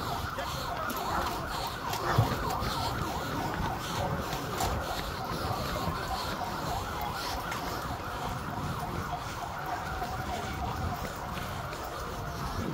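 A siren wailing slowly up and then down over a dense, steady rumbling noise, with a sharp thump about two seconds in.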